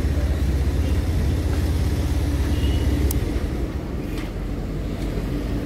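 Motorcycle engine running at low speed with a pulsing low rumble that eases off a little past halfway, with a couple of faint clicks.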